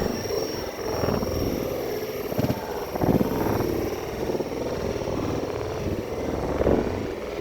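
Passenger train running along the track: a steady rumble of wheels on rails with a few louder knocks, about two and a half, three and near seven seconds in.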